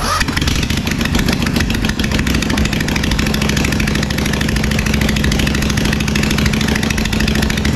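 Kawasaki FS600V V-twin mower engine running steadily, its sound cutting in abruptly and holding an even, fast pulse.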